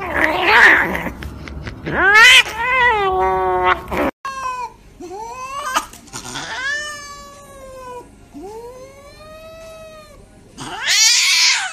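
Domestic cats yowling and wailing while restrained for injections: a series of long, drawn-out cries whose pitch rises and falls, with a loud yowl near the end. These are cries of distress at being held and handled.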